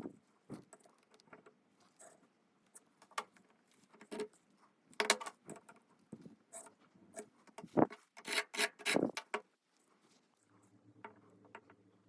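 Irregular clicks, knocks and scraping of small metal parts and tools being handled at a lathe. Near the end a faint steady hum sets in, as of a motor starting.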